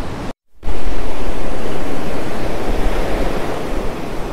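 Ocean surf washing onto a beach, a loud steady hiss with wind rumbling on the microphone. The sound drops out completely for a moment about half a second in, then comes back louder.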